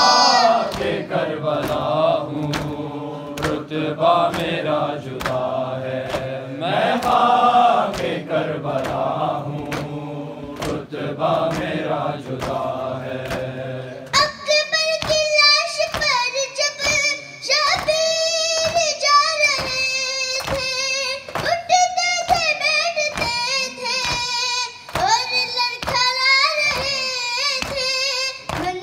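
Urdu noha recitation with matam. For the first half a group of men sings the refrain together, then a boy's solo voice leads the verse. Mourners' hands strike their chests in a steady beat throughout.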